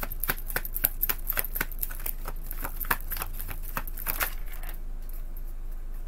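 A deck of tarot cards being shuffled by hand: a quick run of soft flicking clicks that stops about three-quarters of the way through, leaving a faint steady hum.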